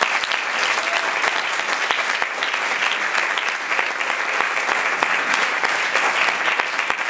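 Audience applauding steadily in a hall, a dense patter of many hands clapping.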